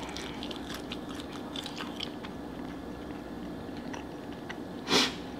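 A person chewing a mouthful of cheeseburger, with many small, soft wet mouth clicks. There is one brief louder noise about five seconds in.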